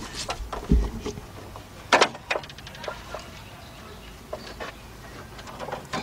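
Scattered handling knocks and clicks, with a low thump under a second in and a loud sharp click about two seconds in, followed by a quick run of fine ticks.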